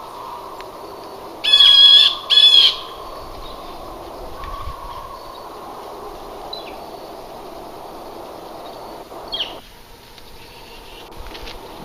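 Two loud, wavering animal calls, each about half a second long, one right after the other. A steady background hiss drops away near the end, and a few short, high bird chirps sound over it.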